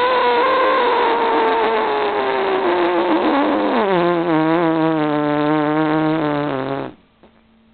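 A person's voice making a long, drawn-out noise for a cat: a high held tone that slowly falls, drops sharply about four seconds in to a low, wavering tone, and cuts off abruptly near the end.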